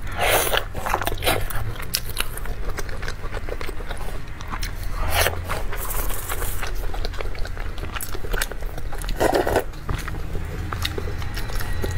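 Close-miked chewing and wet mouth sounds while eating a soft steamed bun, with many small smacking clicks and a few louder bites.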